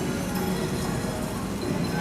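Background music over a dense wash of restaurant noise.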